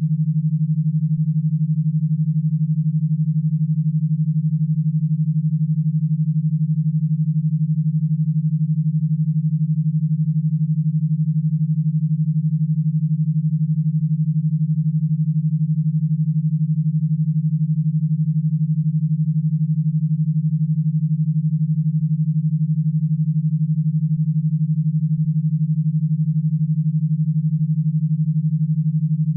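Electrostimulation (e-stim) audio signal: a single synthesized low tone near 150 Hz, held steady and unchanging, meant to drive an e-stim powerbox rather than to be listened to.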